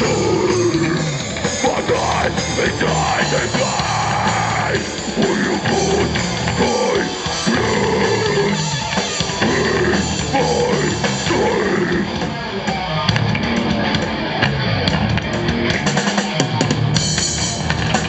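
Melodic death metal band playing live through a PA: drum kit with bass drum and snare, over distorted electric guitars and bass.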